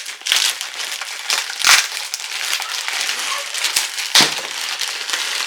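Plastic mailer bag crinkling and rustling as hands rummage through it, with two sharper crackles, the first about a second and a half in and the second about four seconds in.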